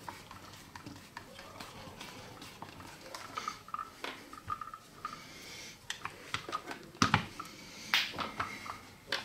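Hands handling a plastic electric drill on a cloth-covered workbench: scattered clicks, taps and rubbing, a few short squeaks a few seconds in, and a louder knock about seven seconds in.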